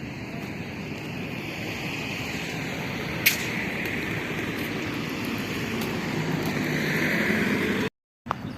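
Steady driving noise from a vehicle on the road, building slightly, with a single sharp click about three seconds in and the sound cutting out briefly near the end.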